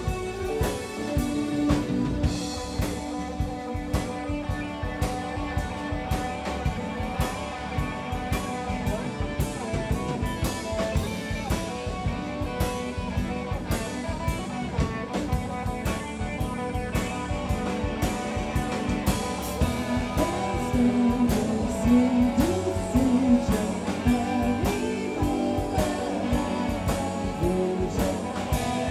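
Live band playing: electric guitar over bass guitar, drum kit and keyboard, with a steady drum beat.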